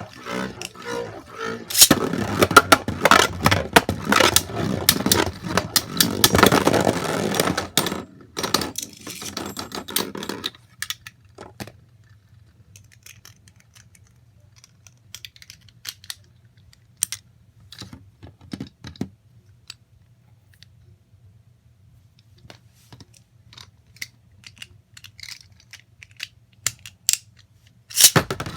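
Small hard objects being handled: a dense rattling clatter of clicks for about eight seconds, then only sparse light clicks, and a short loud clatter near the end.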